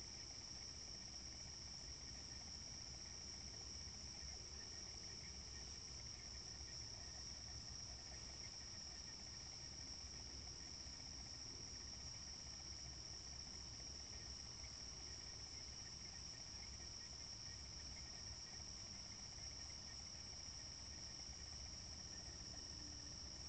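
Faint, steady chorus of night insects such as crickets: a continuous high-pitched chirring that does not change.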